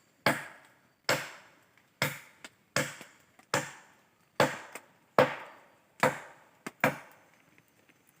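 Firewood being chopped by hand with a blade: about eight evenly spaced sharp chopping strikes into wood, roughly one every 0.8 seconds, with a lighter knock near the end.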